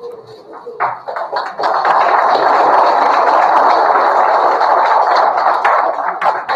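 Audience applauding: a few scattered claps about a second in swell into steady, loud applause, which thins back to scattered claps near the end.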